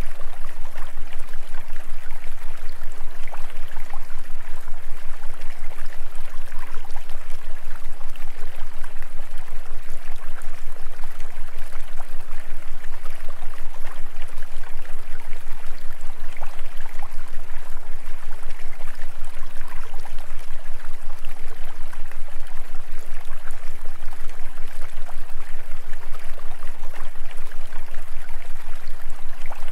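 Steady rushing noise like a flowing stream, unchanging throughout, over a constant low hum.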